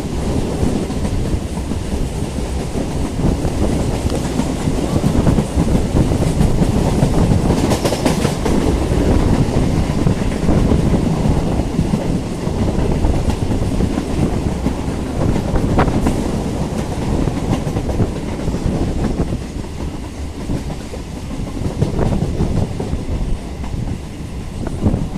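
Electric local train (EMU) running along the track, with a steady low rumble and the wheels clattering over rail joints. There are a couple of sharper knocks, one about a third of the way in and another around the middle.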